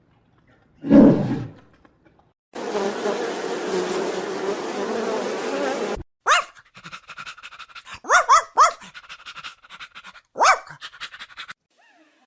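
A string of animal calls: a short loud growl about a second in, then three and a half seconds of steady rasping, then a run of short, sharp yelping calls, each rising and falling in pitch.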